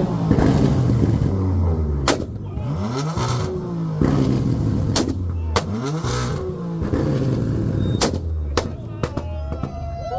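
A performance car's engine revved hard again and again, each rev rising in pitch, with sharp exhaust cracks going off between the revs, about five in all.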